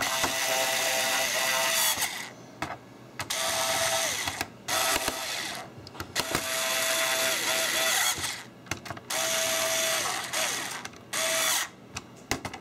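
Coleman 2.4-volt FlashCell cordless screwdriver driving small screws into a laptop's plastic bottom shell. Its motor whines in short runs of a second or two, one run per screw, with brief pauses between them.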